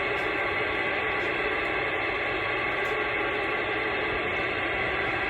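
CB radio receiver hissing with steady static between transmissions, with no station coming through clearly.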